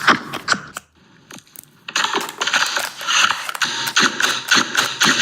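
Irregular series of sharp mechanical clicks and clacks from an M4A1 gel blaster, with a short lull about a second in before the clicking resumes.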